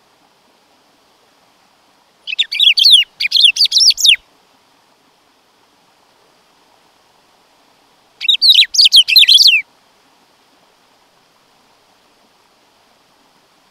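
Black-throated saltator (bico-de-pimenta) singing. There are two phrases, one about two seconds in and one about eight seconds in, each a quick run of high notes that fall sharply in pitch and last a second and a half to two seconds.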